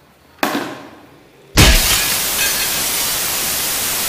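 Glass-shattering sound effect: a crash about half a second in that fades over a second, then a louder crash about a second and a half in that carries on as a steady rushing noise.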